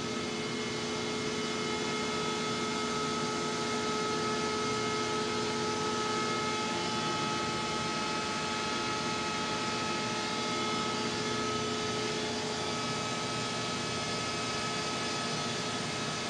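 Steady hum and fan noise from running electrical equipment in a solar plant's inverter and switchgear room: an even hiss with several steady whining tones.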